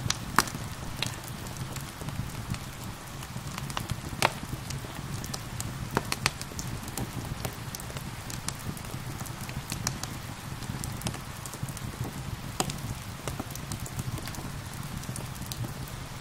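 Wood fire crackling, with irregular sharp pops, over a steady hiss of gentle rain.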